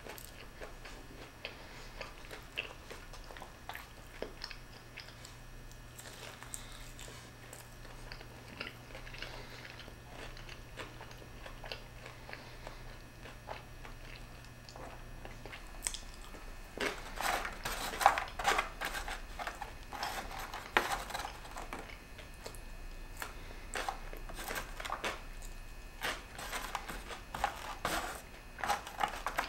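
A person chewing a crispy breaded fried chicken finger close to the microphone: soft mouth sounds at first, then frequent crackly crunching from about halfway on.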